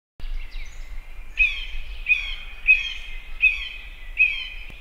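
Bird calls: a short, falling chirp repeated about every 0.7 seconds over a faint low hum.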